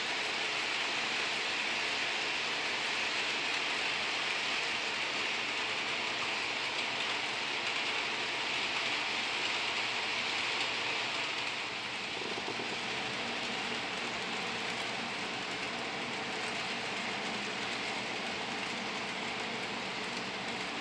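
HO scale Athearn Blue Box GP40 model locomotive's motor and the freight cars' wheels running on the track: a steady rushing hiss that drops a little in level about twelve seconds in.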